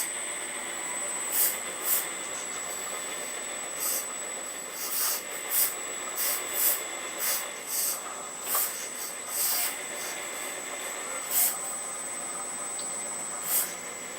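Earth Digger 4200XL RC hydraulic excavator running: a steady high-pitched whine over a constant hiss, with short hissing bursts at irregular intervals, about one or two a second, as it works.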